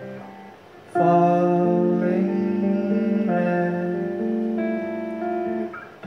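Acoustic guitar played live in an instrumental passage of a song: a soft fading chord, then about a second in a loud strummed chord, with the chords changing every second or so.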